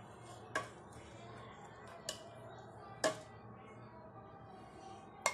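Steel ladle clinking against the side of a cooking pot four times while scooping out thick vegetable curry, the loudest knock about three seconds in.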